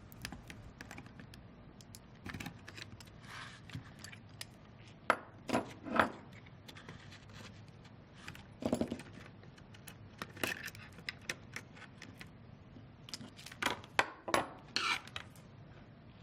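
Irregular small metallic clicks and clinks of a slotted screwdriver working terminal cables off their terminal lugs, with a few louder clinks spread through.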